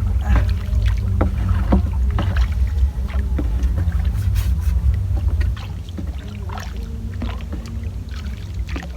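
Small wooden boat on the water: a heavy low rumble with scattered knocks and small splashes, easing off about five and a half seconds in.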